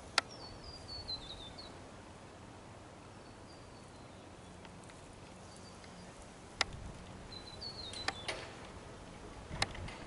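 Quiet outdoor ambience with a small bird singing short phrases of high, falling notes several times, and a few sharp clicks.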